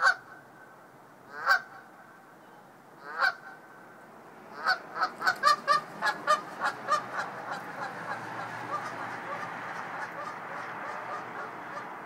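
Canada goose honking: three loud single honks about a second and a half apart, then, as it takes off and flies, a rapid run of honks, about three a second, growing fainter.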